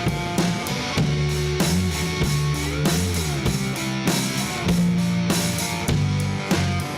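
Blues band playing an instrumental passage: slide guitar over a drum kit keeping a steady beat. A guitar note glides up and back down about three seconds in.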